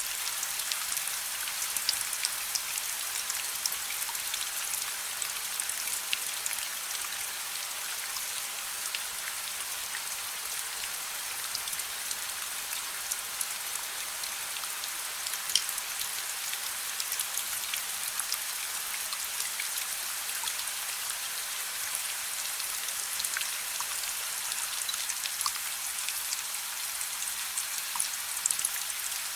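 Steady rain hiss, dotted throughout with scattered sharp crackles from a wood fire.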